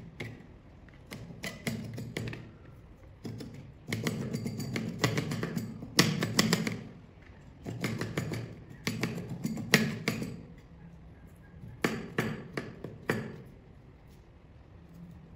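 Kitchen knife chopping turmeric root on a plastic mat: bursts of quick sharp knocks of the blade against the mat, each lasting a second or so with short pauses between. The chopping stops for the last couple of seconds.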